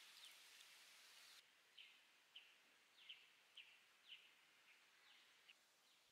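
Faint bird chirps in quiet outdoor ambience: a string of short, high chirps, about two a second, starting after a faint hiss stops about a second and a half in.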